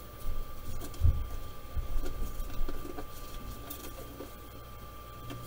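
Light handling sounds at a Creality Ender 5 Pro 3D printer during manual bed leveling: a sheet of paper slid and rubbed under the nozzle, with scattered soft knocks and small clicks from hands on the print head and frame. Under them run a steady low hum and a thin steady high tone.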